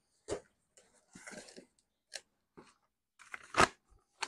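A box and its packaging being handled as it is opened and unpacked: scattered rustles, scrapes and knocks, the loudest a little over three and a half seconds in.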